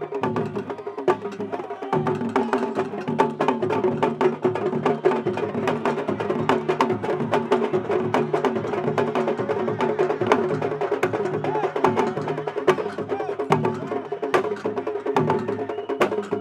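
Traditional Senegambian wrestling drumming: a sabar drum ensemble playing a fast, dense rhythm of sharp hand-and-stick strokes.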